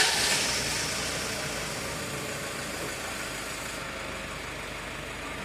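Toyota Hilux turbo-diesel engine just after starting: it runs loud at first, then settles over the first few seconds into a steady idle. The mechanic traces a noise in this engine to the turbocharger.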